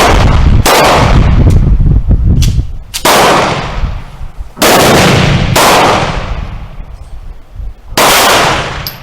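Gunshots at an outdoor range: about five loud shots at uneven gaps of one to two and a half seconds, each ringing out in a long echo.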